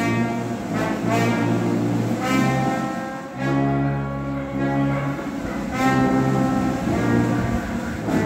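Brass band playing a slow procession march: long held chords, each lasting a second or two, over a deep bass line.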